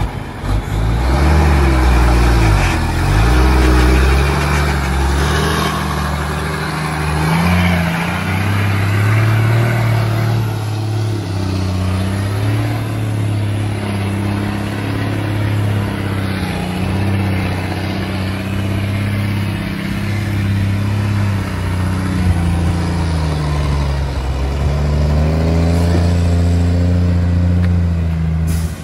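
Heavy diesel engine running loud and steady, its pitch rising and falling repeatedly as it revs up and eases off under load.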